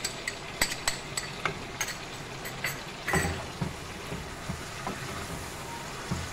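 Chicken karahi sizzling in oil in a coated wok as yogurt goes in, with a spoon clicking against the pan for about the first three seconds. About three seconds in there is a thump, then a spatula stirring the pan with soft knocks over the steady sizzle.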